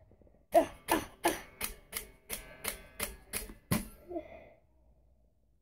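A dumbbell being banged hard and repeatedly: about ten sharp knocks, roughly three a second, that stop after about three seconds.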